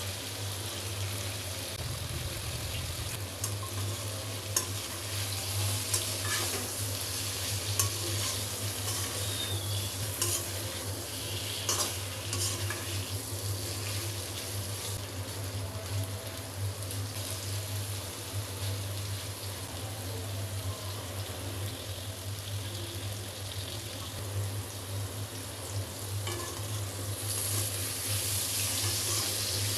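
Pointed gourd (potol) slices sizzling steadily in hot oil in a pan, with a few light clicks of a spatula against the pan, over a low steady hum.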